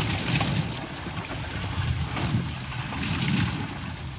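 Single-cylinder diesel engine of a Kubota two-wheel walking tractor running steadily.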